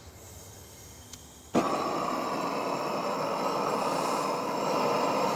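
Faint hiss at first, then about one and a half seconds in a gas blowtorch flame comes in suddenly and burns steadily with a loud, even rushing hiss.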